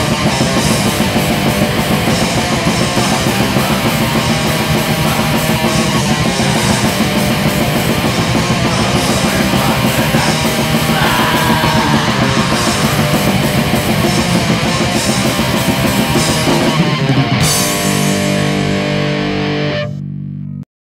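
Black metal from a lo-fi demo recording: distorted guitars and drums playing dense and loud. Near the end the drums and cymbals stop, leaving a held chord that rings for a few seconds and then cuts off abruptly.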